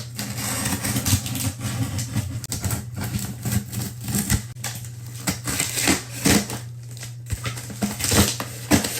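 A large package being opened and unwrapped by hand: irregular crackling, rustling and clicking of packaging throughout, over a steady low hum.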